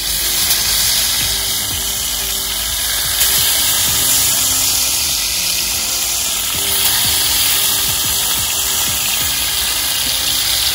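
Pieces of armored catfish frying in hot oil in a pan over a wood fire: a steady sizzling hiss.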